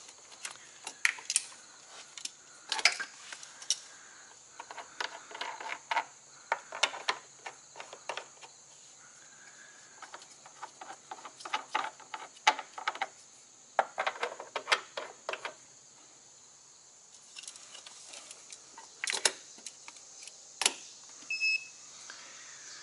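Clicks and rattles of battery-tester clamps and heavy cables being handled and clipped onto terminals in a truck's battery box, in scattered bursts. A short electronic beep sounds near the end, over a steady faint high-pitched whine.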